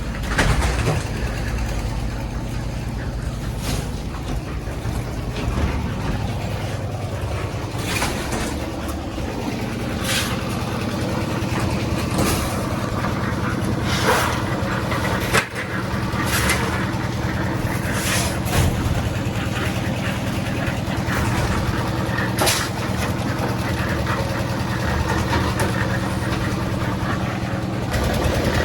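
A heavy engine running steadily, with short bursts of hiss every few seconds.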